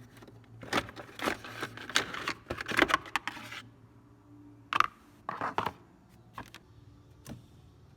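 Hard plastic clicking and scraping as the blower motor's cover and housing are handled by hand: a dense run of clicks and scrapes in the first few seconds, then a few sharper separate clicks.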